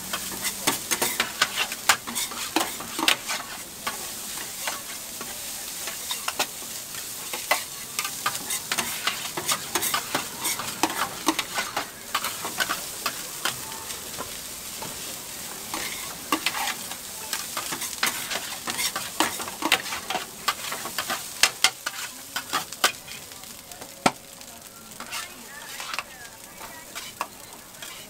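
Metal spatula scraping and clacking against a flat steel griddle as fried rice is stir-fried, over a steady sizzle. The sharp scrapes and clicks come irregularly, several a second.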